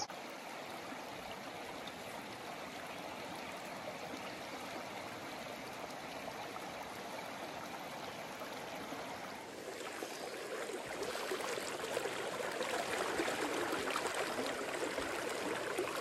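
River current flowing over a riffle, a steady rushing of water that grows louder about ten seconds in.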